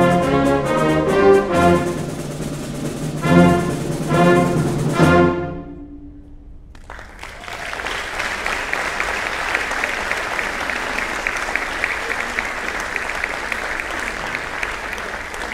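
Concert band of brass and woodwinds playing the last bars of a piece, ending on three loud short chords that ring out and die away about six seconds in. After a brief pause the audience applauds steadily.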